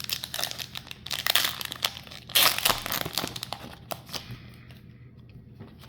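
Foil Pokémon card booster pack being torn open and crinkled: a dense run of crackling for about four seconds, loudest near the middle, then dying down to faint handling.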